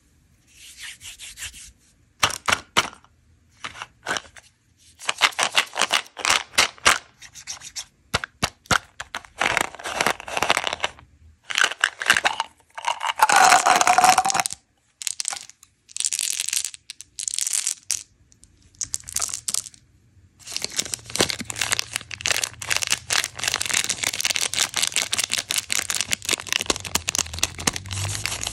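Candy packaging handled by hand: bursts of sharp plastic clicks and rattles as a plastic bottle of Mentos Pure Fresh chewing gum is opened and pellets are tipped into a palm, then steady crinkling of a candy-bar wrapper through the last third.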